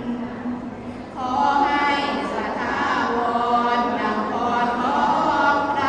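Women chanting Thai Sarabhanya, slow melodic Buddhist verse sung in long held notes that glide in pitch. A softer lull in the first second, then the next phrase starts strongly.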